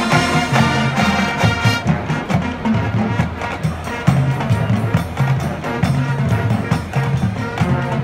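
Marching band playing its field show: brass chords over drums and front-ensemble percussion, with frequent drum strokes.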